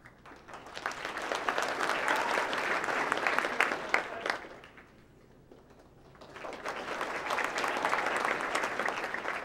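Audience applauding in two rounds. The first swells about half a second in and dies away after about four seconds; the second starts about six seconds in and carries on.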